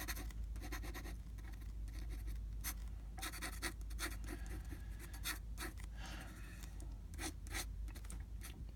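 A gold dip-pen nib scratching across paper in short, irregular strokes as a drawing is inked, over a steady low hum.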